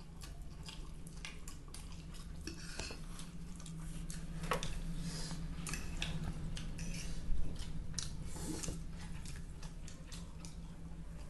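Forks and spoons clinking and scraping against ceramic plates as noodles are eaten, in short irregular clicks, the sharpest about seven seconds in. A steady low hum runs underneath.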